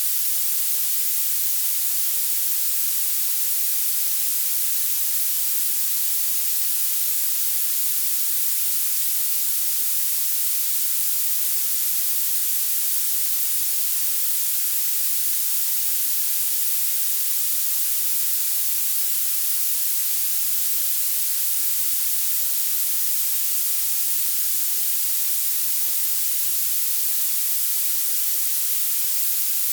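Violet noise: a steady, unchanging hiss whose energy climbs toward the highest pitches, bright and thin with almost no bass.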